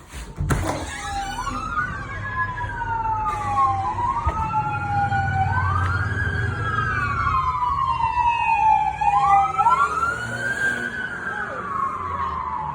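Emergency vehicle sirens wailing, each slowly rising and falling every few seconds, with two sirens overlapping out of step. A low rumble runs underneath, and there is a sharp knock just after the start.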